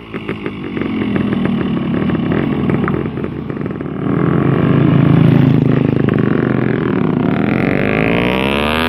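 Yamaha RX-King's two-stroke single-cylinder engine running with uneven, stuttering firing for the first few seconds, then opened up about four seconds in and revving higher near the end, its pitch rising. The owner calls it unwell and coughing.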